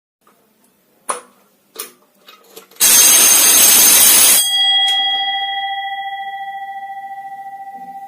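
Two clicks, then an electric alarm bell, set off by the alarm system's emergency trigger switch, rings loudly for about a second and a half. It cuts off abruptly, and its gong rings on and slowly fades.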